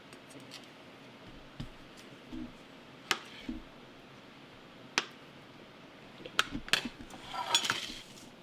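A knife cutting a stick of butter into chunks on a cutting board: a few separate sharp taps of the blade on the board, closer together near the end.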